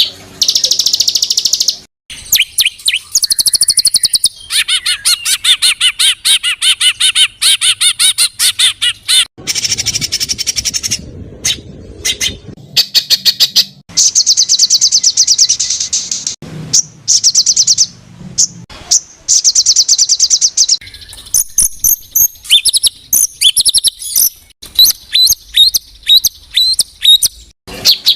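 Recorded songbird calls edited into a training track for cage birds: fast high trills and rapid runs of short, sharp repeated notes, in blocks that start and stop abruptly.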